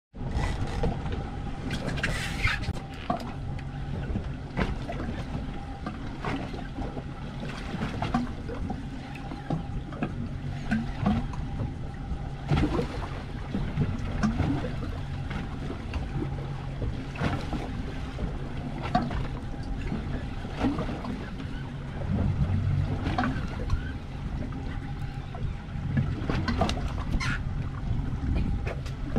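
Boat sounds offshore: water slapping the hull and wind, with a low steady hum and scattered clicks and knocks as a hooked fish is reeled up to the boat.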